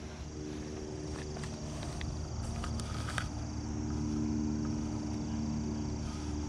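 A low, steady motor drone from an unseen source runs throughout. Faint splashes and drips come a few seconds in as a small bass is released by hand into shallow pond water.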